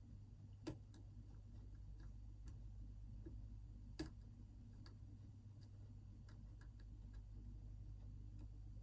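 Faint, irregular clicks of a hook pick working the top pin stacks of an ASSA Twin 6000 lock cylinder, setting them into their counter-milling, with a louder click early on and another about four seconds in.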